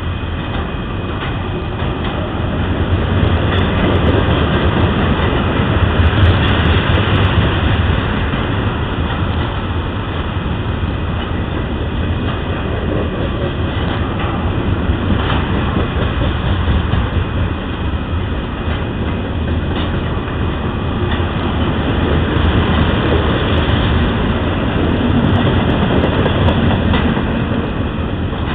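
Freight train of ethanol tank cars rolling past: a steady rumble of steel wheels on rail, with clacks as the wheels cross rail joints.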